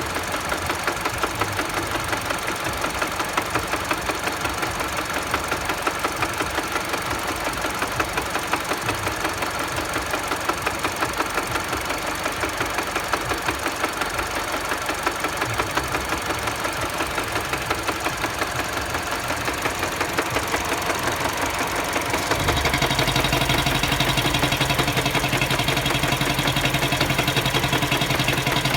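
Mini Cooper engine running with a regular knock from the engine, the fault being diagnosed. About three quarters of the way through the sound turns louder and steadier, with a low hum coming in.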